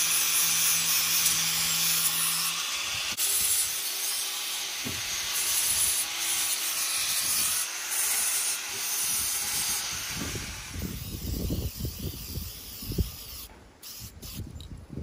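Angle grinder with an abrasive disc running against a galvanized steel pipe, polishing the welded pole before painting: a steady high, hissing grind. About ten seconds in the grinding stops, and low, irregular knocks and rustles follow.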